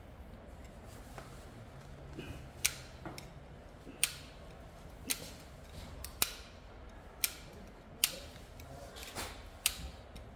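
A hand tool for electrical wire snapping shut again and again: about seven sharp clicks, roughly one a second, as wire ends are stripped or crimped.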